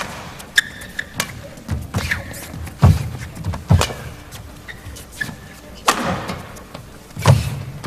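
Badminton rally: sharp racket strikes on the shuttlecock and heavy footfalls from lunging players, about one every second, with a few short squeaks of court shoes on the floor.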